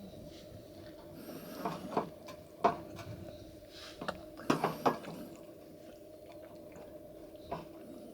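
Scattered light clicks and knocks, the loudest about two and a half seconds in and a cluster a little after four and a half seconds, over a faint steady hum.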